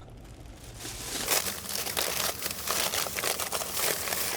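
Candy bar wrapper crinkling and rustling as it is handled and opened, a dense run of irregular crackles that starts about a second in.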